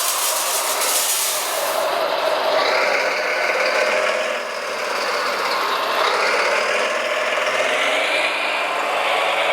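Radio-controlled construction machines running, a steady mechanical whine, with a hiss for the first two seconds or so.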